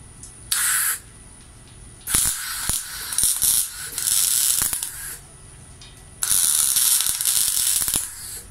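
MIG welder arc crackling and sizzling on steel flat bar in bursts: a short one about half a second in, a long one from about two to five seconds with sharp pops, and another from about six to eight seconds.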